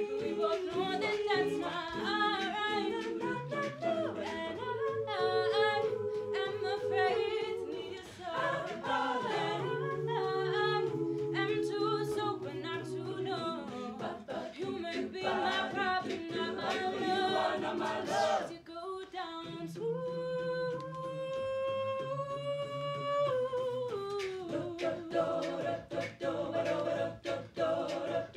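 A cappella vocal group singing a pop song: a woman's lead voice over several sung backing harmony parts, with a long held chord about two-thirds of the way through.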